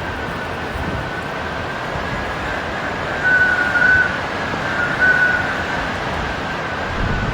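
Typhoon wind and rain noise, with a thin, steady high whistle running through it that swells louder twice, about three and five seconds in.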